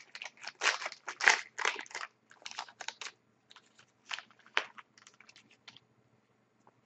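Foil wrapper of a hockey card pack being torn open and crinkled in a quick series of short rustles, thinning out about three seconds in to a few light clicks of the cards being handled.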